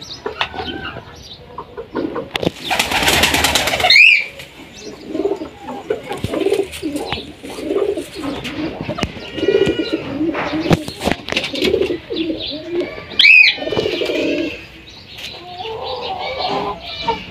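Lakha pigeons giving repeated low rolling coos, the courtship cooing of a displaying male to his hen. A burst of wing flapping comes about three seconds in, and cockatiels give sharp rising-and-falling whistled calls around four and thirteen seconds in.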